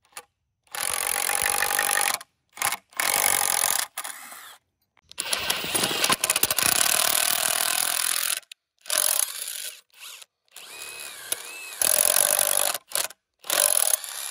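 A power tool runs loudly in a series of short bursts of one to three seconds each. Each burst starts and stops abruptly, with brief silences between them.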